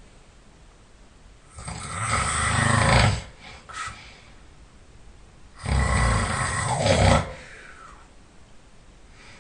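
A man snoring loudly: two long snores about four seconds apart, each lasting about a second and a half and building up before it stops abruptly.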